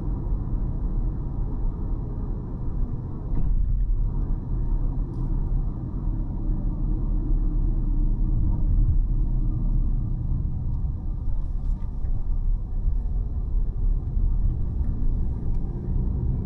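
Car driving along city streets: a steady low rumble of road and engine noise.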